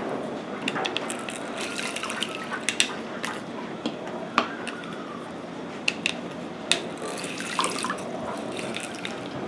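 Lime juice trickling and dripping into a plastic pitcher of water as limes are pressed in a plastic hand citrus squeezer, with a few sharp clicks as the squeezer is worked.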